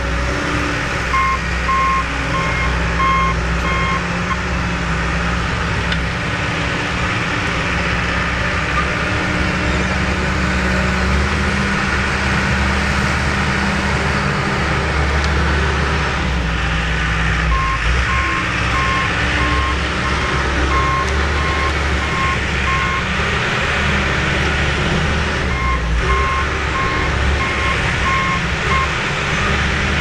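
John Deere crawler dozer's diesel engine running steadily while the machine moves earth. Its backup alarm beeps about twice a second in three spells.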